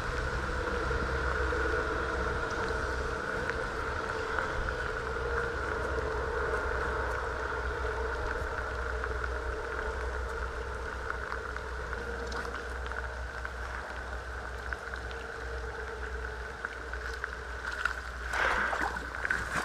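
Steady outdoor background hum with a low rumble, and a brief noisier rustle near the end.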